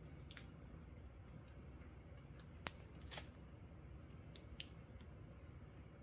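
Faint handling sounds of clear plastic photocard sleeves and a sticky paper index tab being peeled and pressed on. A few short, crisp clicks and crinkles, the sharpest about two and a half seconds in.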